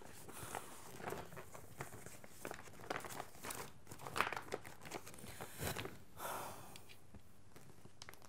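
Sheets of paper in a clear plastic document sleeve rustling and crinkling as they are handled, a string of irregular small crackles that dies away near the end.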